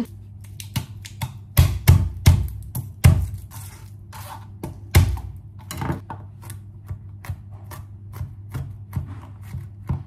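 Chef's knife mincing garlic on a plastic cutting board: quick, irregular knocks of the blade on the board, several a second, the loudest in a cluster about one and a half to three seconds in and again about five seconds in, over a steady low hum.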